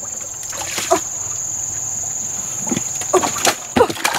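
Insects keep up a steady high-pitched buzz throughout. In the second half, water sloshes and splashes irregularly as hands work in shallow muddy water.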